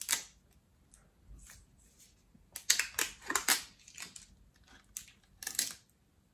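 Plastic child-resistant cap on a small bottle being pressed and twisted, giving several short bursts of clicking and scraping as it fails to come off.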